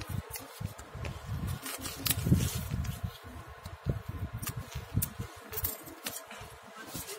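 A plastic courier bag crinkling and crackling as it is handled, with irregular sharp clicks and low bumps from handling close to the microphone.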